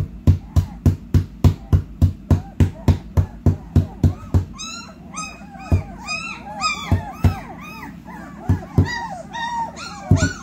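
Fast, even, loud beats, about three or four a second, stop about four seconds in. Young puppies then whimper and yelp in high, rising-and-falling cries, and the beats start again near the end.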